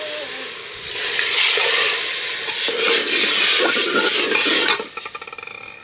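Food sizzling in a pan while being stirred. It is a loud, scraping hiss that dies away about five seconds in.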